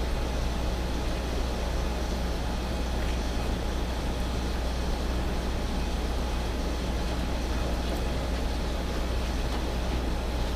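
Steady room tone: a constant low hum under an even hiss, unchanging throughout, with no speech.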